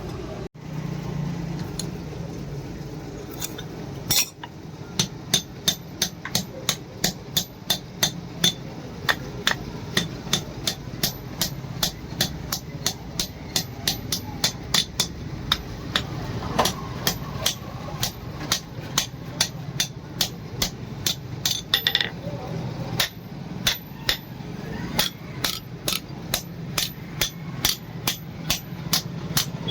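Blacksmith's hammer striking steel on an anvil in a steady rhythm of about two blows a second, each blow with a short metallic ring, over a steady low hum. The blows start about four seconds in and pause briefly two-thirds of the way through.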